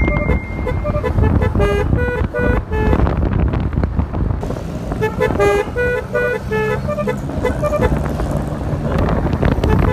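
Basuri telolet multi-tone air horn on a motorcycle playing a tune of short stepped notes. The notes break off about three seconds in and start again about two seconds later, over engine and road noise.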